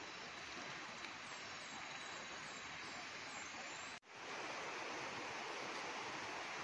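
Steady rushing outdoor hiss with faint, short high chirps repeating in the first half. The sound cuts out abruptly about four seconds in and comes back slightly louder.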